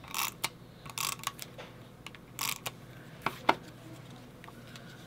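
Paper and cardstock being handled and slid into place on a cutting mat: a handful of short rustles and light taps. The sharpest tap comes about three and a half seconds in.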